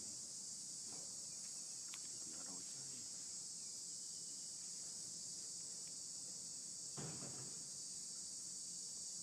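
Steady, high-pitched chorus of insects, a continuous shrill drone, with a few faint, brief low sounds beneath it about two and a half and seven seconds in.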